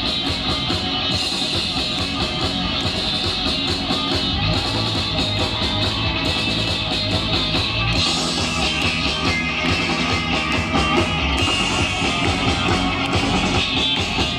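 Rock band playing an instrumental passage with guitars over drum kit, without vocals; the sound of the music shifts about eight seconds in.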